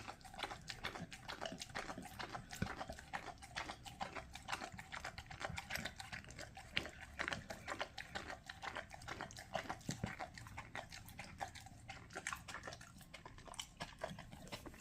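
A large dog eating sardine and rice by himself, chewing with many quick, irregular clicks and smacks.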